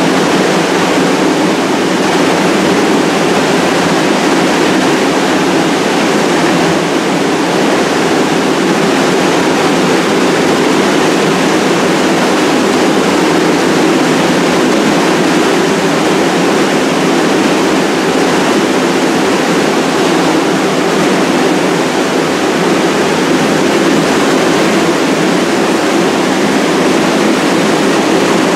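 Steady, unchanging rush of ventilation noise beside a stalled subway train, with no wheel, brake or traction-motor sounds of a train on the move.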